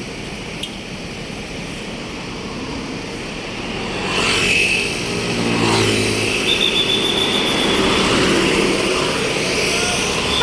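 Road traffic at the roadside: vehicles drive past, louder from about four seconds in. One passes close, its engine note falling as it goes by.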